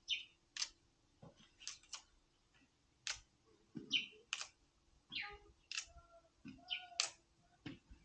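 Green matooke (cooking bananas) being snapped off the hand into single fingers: a string of short, sharp, irregular snaps and clicks, roughly two a second.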